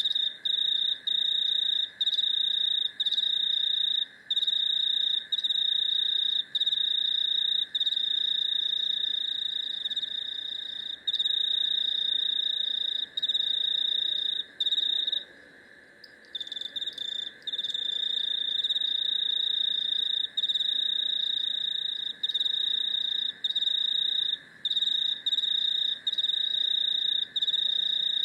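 A trilling insect's loud, continuous high-pitched trill, starting suddenly, broken by brief pauses every second or two and a longer pause about halfway. A fainter, steady, lower-pitched insect chorus runs underneath.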